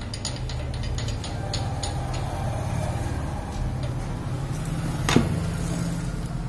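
Light metallic clicks and one sharp click about five seconds in as the air compressor's removed cylinder head and fittings are handled, over a steady low hum.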